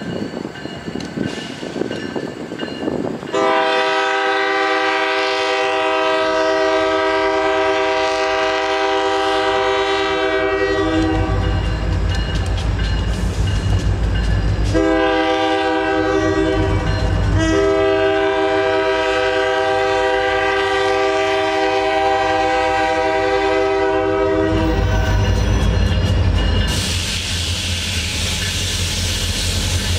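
Locomotive air horn sounding: one long blast, then after a pause a short blast and a final long one, heard as the train approaches. A low engine rumble builds as the locomotive nears and passes, and near the end the horn gives way to the rattle of the train's wheels on the rails.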